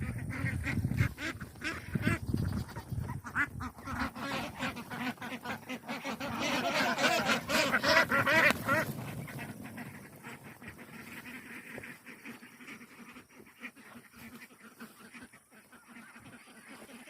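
A group of domestic ducks quacking and honking in quick, overlapping calls, loudest in a burst about six to nine seconds in, then thinning out and fading.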